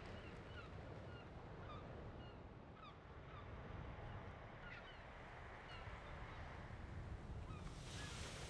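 Faint seaside ambience: a low steady surf rumble with short bird cries scattered through it, and a hiss of breaking waves swelling near the end.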